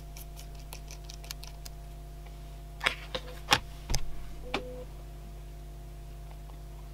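Small clicks and taps from handling a Jakemy 8168 aluminium precision screwdriver, with a few sharper ticks in the middle, over a steady low hum.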